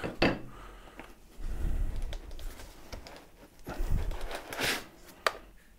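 Hands handling packing foam and cardboard, rustling and scraping in several short bouts as parts are lifted out of the box, with a small click near the end.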